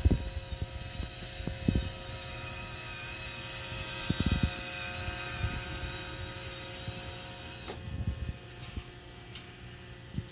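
Roomba robot vacuum running on a Ryobi drill battery: a steady motor whine made of several tones, with low thuds now and then. About eight seconds in the higher part of the whine fades.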